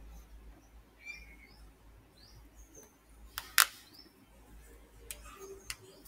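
A sharp computer-mouse click a little over halfway through, followed by a few fainter clicks near the end, with faint bird chirps in the background.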